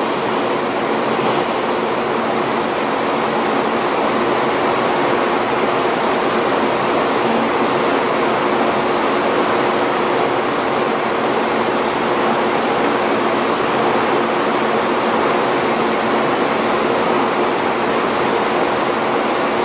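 Steady rushing air with a low hum from a stationary 800 series Shinkansen's air conditioning and onboard equipment, the train standing idle before departure.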